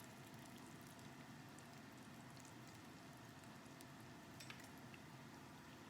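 Faint sizzle of food cooking on the stove, with scattered tiny pops over a low steady hiss.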